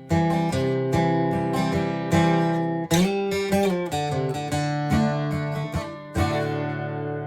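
1967 Framus 5/199 BlueRidge acoustic guitar played in a run of strummed and picked chords. A last chord a little after six seconds rings on and slowly fades.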